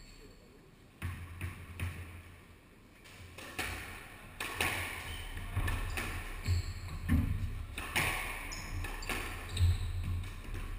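Squash rally: the ball struck by rackets and smacking off the court walls in quick irregular knocks, with players' shoes on the wooden floor. The hits are few at first and come thick and fast from about four seconds in.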